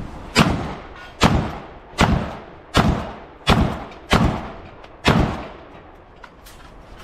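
A string of seven pistol shots, about three-quarters of a second apart with a slightly longer gap before the last. Each shot has a short echo trailing off.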